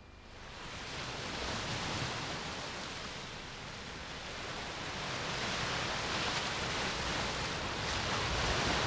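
Sea surf: a steady rush of waves washing in, swelling up over the first second and holding.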